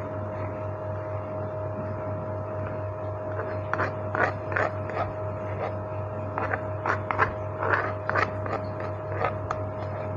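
Yellow plastic spoon scraping coarsely ground corn and spice paste out of an earthenware mortar into a steel bowl: a run of short scrapes and knocks starting a few seconds in. A steady hum underneath.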